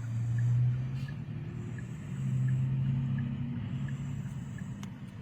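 Car engine and road rumble from inside a moving car, swelling and easing, with a faint regular ticking.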